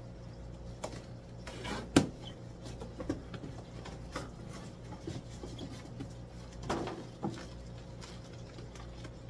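Scattered knocks and rustling as a shipping box of bagged live fish is opened and handled, with a sharp knock about two seconds in and a longer rustle near seven seconds. A steady low hum from the store's aquarium pumps and filters runs underneath.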